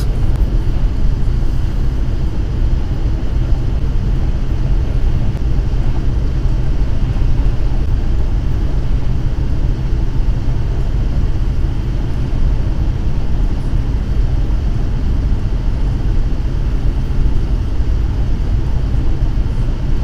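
Steady low rumble of a vehicle driving at highway speed: tyre and engine noise heard from inside the cabin.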